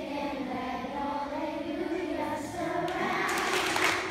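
Children singing a sustained melody, with the audience breaking into applause about three seconds in.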